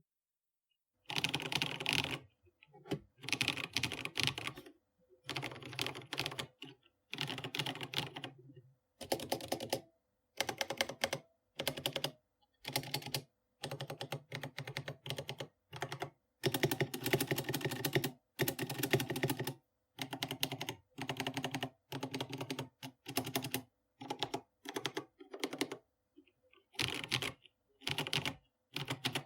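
Typing on a GK61 mechanical keyboard with pre-lubed Holy Panda tactile switches in an aluminum case with a steel plate. Bursts of fast keystrokes, one to two seconds each, with short pauses between them, starting about a second in.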